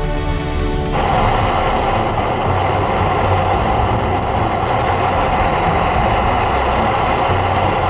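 Handheld gas blowtorch flame burning with a steady hiss, heating a rust-seized Torx screw to free its thread. Background music cuts off about a second in, as the flame sound begins.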